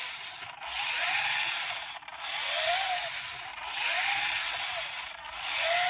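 The motor-driven screw pistons of a 3D-printed InMoov robot's stomach section working, with a dry plastic rubbing hiss that swells and fades about every one and a half seconds. Each swell carries a whine that rises and then falls in pitch.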